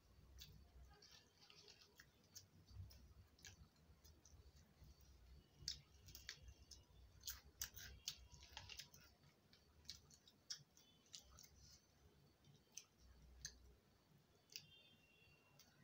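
Near silence with faint, scattered clicks and smacks of eating by hand: fingers working rice on a steel plate and chewing.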